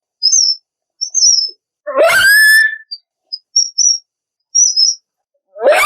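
Dog crying: a long whining cry about two seconds in that slides up to a high held note, and another starting near the end, with short very high squeaks in between.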